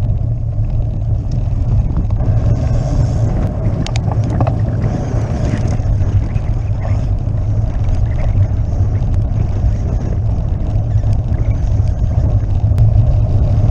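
Road bicycle riding over cobblestones: a steady, heavy rumble and rattle of tyres and frame on the pavé, with wind buffeting the microphone.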